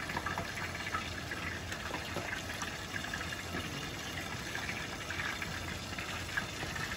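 Steady hiss from a pan of water heating on a gas stove burner, with faint small crackles.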